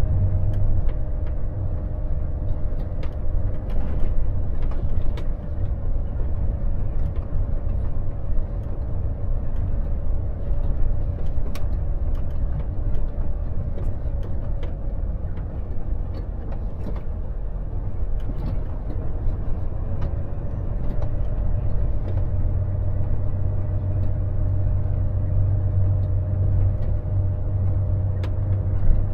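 Volvo FH truck engine running steadily under way, with road noise and occasional knocks and rattles. The low engine drone eases off through the middle and comes back stronger over the last several seconds.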